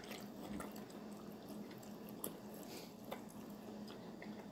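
Faint chewing of a mouthful of bacon-wrapped chicken: soft, wet mouth clicks scattered over a steady low hum.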